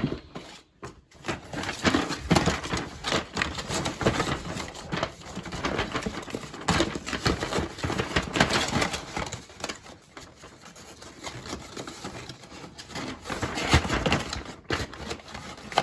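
Cardboard being folded and handled: irregular rustling, scraping and soft taps as the perforated edges of a cupcake box insert are pressed down, easing off for a while in the second half.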